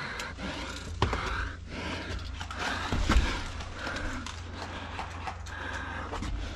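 A person's heavy, panting breaths close to the microphone, with two knocks about one and three seconds in.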